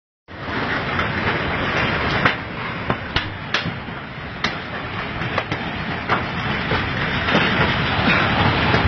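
A continuous rumbling roar with many sharp cracks and clicks scattered through it, recorded on a phone during a strong earthquake while the ground is moving. It cuts in just after the start, after a moment of silence.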